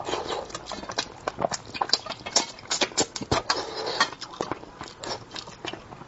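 Close-miked eating of spicy braised fish: wet chewing and lip smacking, a quick irregular run of sharp smacks and clicks.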